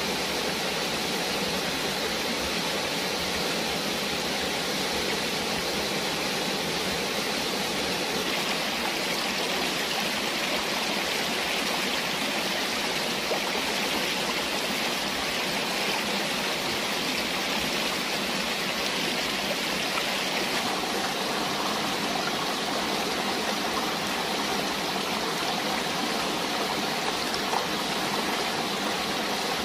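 Rocky jungle stream and small cascades, water rushing steadily over stones.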